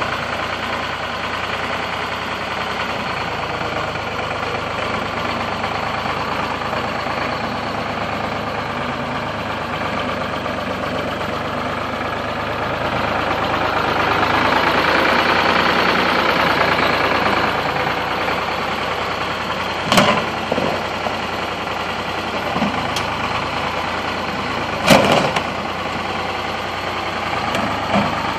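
A machine's engine running steadily during demolition work, swelling a little in the middle. It is broken by two sharp bangs, about 20 and 25 seconds in.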